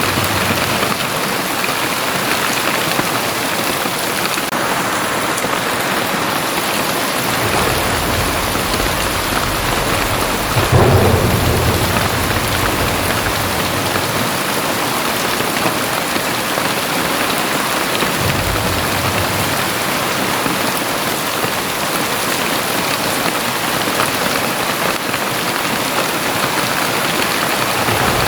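Very heavy rain pouring down steadily, with low rolling thunder in the background through the middle and end. A louder peal of thunder comes about eleven seconds in.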